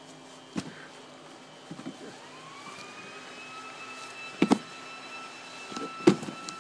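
A machine's high whine that rises in pitch for about a second and then holds one steady note, with a few sharp thumps, the loudest about four and a half and six seconds in.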